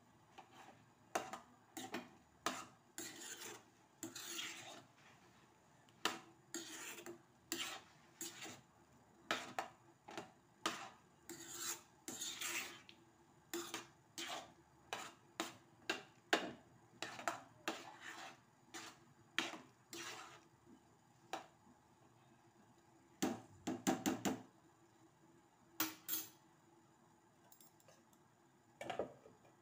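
Metal spoon stirring and scraping against the sides and bottom of a steel cooking pot, in irregular strokes about once a second, with a quick rattle of several knocks a little past two thirds of the way through.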